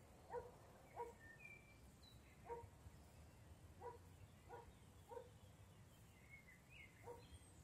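Faint forest ambience: a short animal call repeated about seven times at uneven intervals, with thin, high bird chirps between and after them.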